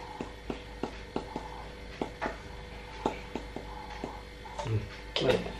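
Light, quick taps, about three a second: ground black pepper being tapped out of its container over the batter mixture in the bowl. A low steady hum lies underneath.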